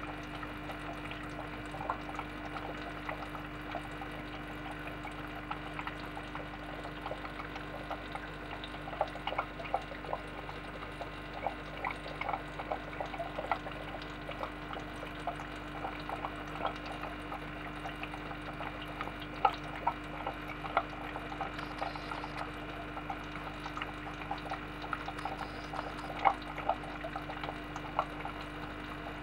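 Aquarium water bubbling and dripping in many small irregular plinks, over a steady low hum from the tank's running equipment.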